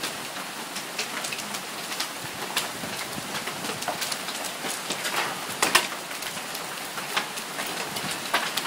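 Heavy rain and hail pouring down: a steady hiss with scattered sharp clicks of hailstones striking.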